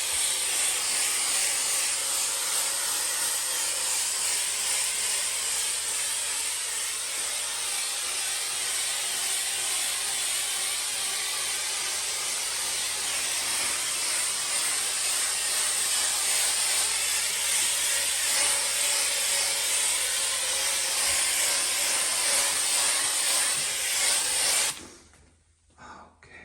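Homax aerosol orange peel texture can spraying texture onto a wall in one long, steady hiss that cuts off suddenly near the end.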